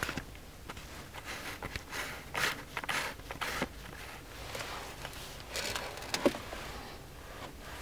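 Handling noise from a handheld camera in a car cabin: scattered rustles and soft knocks, with a sharper click a little over six seconds in.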